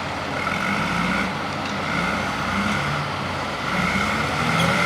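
Heavy diesel earthmoving machines working, with engines running and their pitch shifting up and down as they work under changing load; the sound grows somewhat louder near the end.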